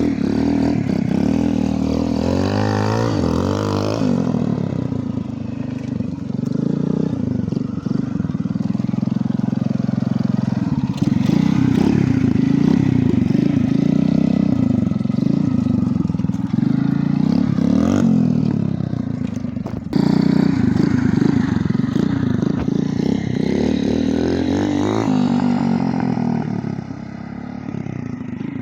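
Small motorcycle with a swapped 90cc engine running and revving, its pitch rising and falling again and again, with a few sudden jumps in sound.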